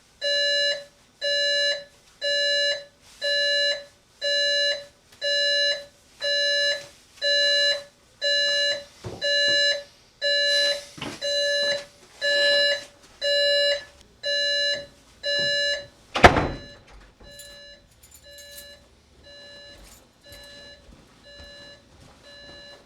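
Alarm clock beeping in a steady pulse of short pitched beeps, a little more than one a second. About sixteen seconds in there is a loud thump, after which the beeping goes on much fainter.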